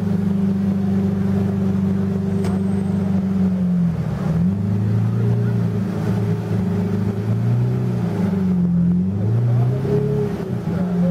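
A car engine running at a steady speed, then revved up and down repeatedly from about four seconds in, its pitch rising and falling several times.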